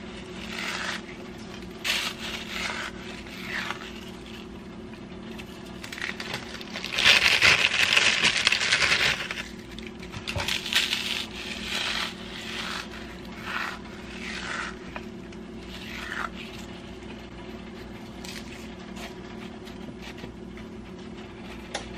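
Ritz crackers being crushed by hand and crumbled onto a casserole: irregular crunching and crackling, with a longer, louder spell of crunching about seven to nine seconds in. A steady low hum runs underneath.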